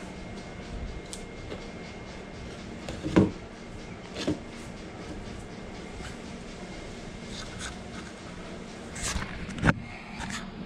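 Putty knife scraping and tapping on a wooden board while mixing sawdust with white glue into a wood filler, with a few sharp knocks, the loudest about three seconds in and two more near the end.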